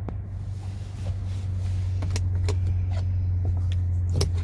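Steady low hum inside the idling car's cabin, with a few sharp clicks in the second half as cabin controls and fittings are handled.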